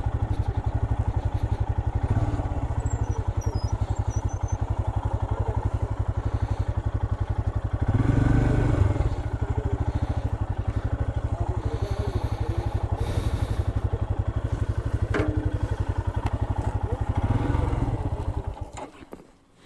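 Royal Enfield Himalayan's 411 cc single-cylinder engine running at low revs with a steady, even thump. It swells louder briefly about eight seconds in, then fades out near the end.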